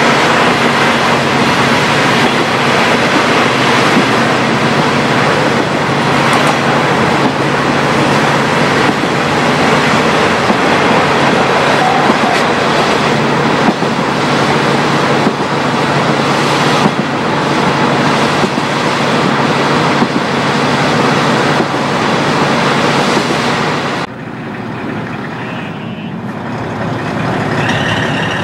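KiHa 40 diesel railcar's original DMF15HSA engine running steadily under load, heard from inside the car together with wheel and rail noise. Near the end the sound drops away suddenly and thins out, then builds again.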